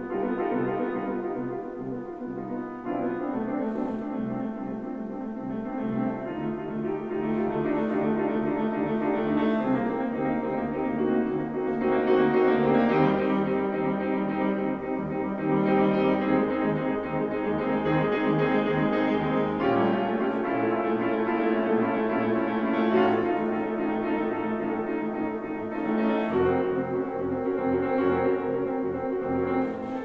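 Solo grand piano playing a prelude: held chords that change every few seconds, growing louder through the middle stretch and easing back near the end.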